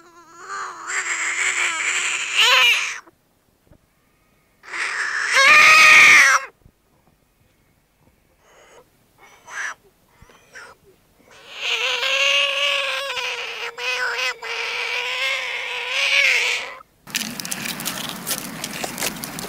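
South American horned frog calling: three long, wavering calls, the second the loudest and the last about five seconds long, with faint clicks in the gaps. Near the end they give way to a steady rustling crackle.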